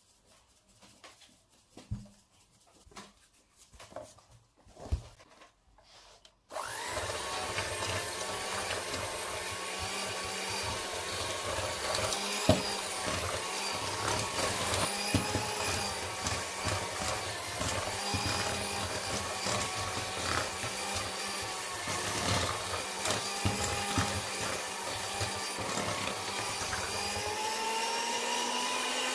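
A few light knocks of a hand-held mesh sieve as flour is sifted, then, about six seconds in, an electric hand mixer starts abruptly and runs steadily, its beaters working a stiff butter-and-flour cookie dough in a plastic bowl.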